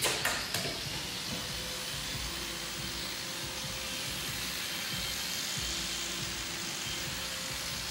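Angle grinder running steadily with its abrasive disc on sheet metal, a steady high hiss and whir as it strips old paint and body filler from the car's engine bay.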